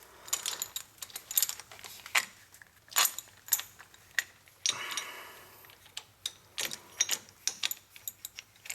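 Metal clicks and clinks of a parking brake cable end and its steel fittings being worked by hand, as the cable is pushed to click into its fitting.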